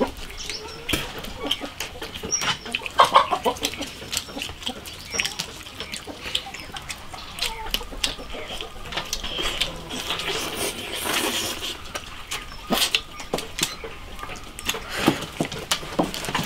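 Chickens clucking at intervals, over scattered small clicks of chopsticks against bowls and other eating noises.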